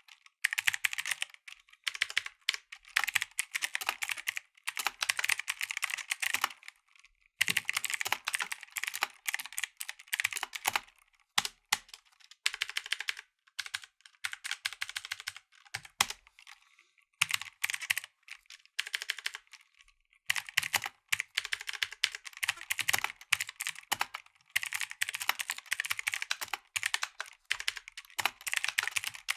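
Mechanical keyboard with blue (clicky) switches being typed on, in bursts of rapid keystrokes with short pauses between them.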